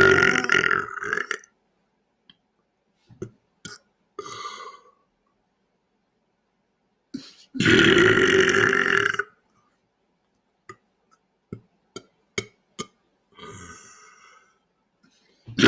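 A man's loud belches: one trailing off about a second in, a long one of nearly two seconds in the middle, and another starting right at the end. A few short clicks and faint small sounds fall in the gaps between.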